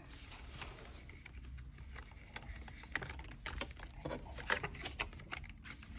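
Crinkling and light clicks of polymer banknotes being slid into a clear plastic binder envelope, then the plastic envelope pages of a ring binder being flipped over.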